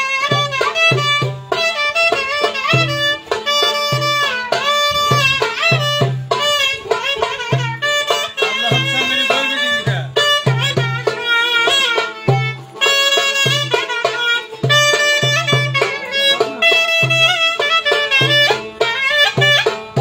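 Live Turkish folk dance music: a clarinet playing a bending, ornamented melody over a steady, repeating drum beat.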